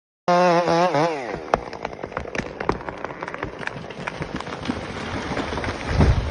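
A chainsaw's engine note, wavering and then falling away, followed by a dense run of sharp cracks and snaps, with a heavy low thud near the end.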